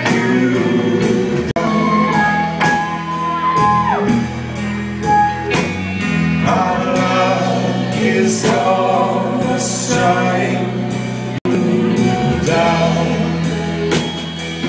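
Live rock band playing a loud instrumental passage on electric guitars, bass and drums, with a sustained guitar note bent about four seconds in.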